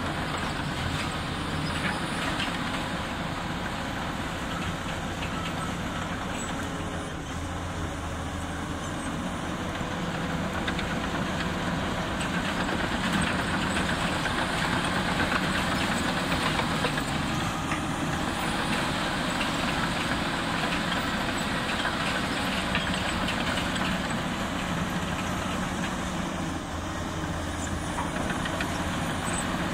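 Komatsu D85E-SS crawler bulldozer's diesel engine running under load as the machine tracks across the dirt and pushes soil with its blade. The engine note is steady and grows a little louder through the middle.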